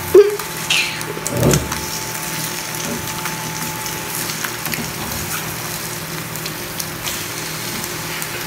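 An egg frying in a pan, a steady sizzle, while a spatula works under it to turn it over. There is a sharp knock of the spatula just after the start and a thump about a second and a half in.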